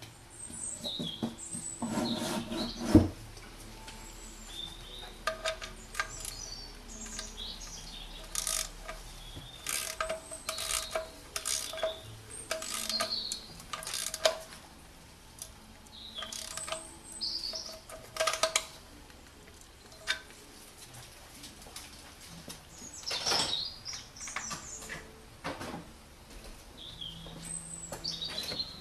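Ratchet and socket clicking in runs as the steel sump drain plug is screwed back in with a new copper washer, with one loud metallic knock about three seconds in. Birds chirp throughout in the background.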